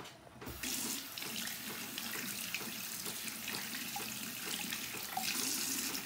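Tap water running through a hose into a top-loading washing machine tub full of clothes, filling it by hand: a steady rush of water that starts about half a second in.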